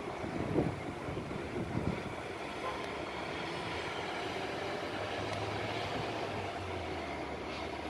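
Steady outdoor city ambience heard from high above a road, a distant hum of traffic. A low steady hum joins about five seconds in.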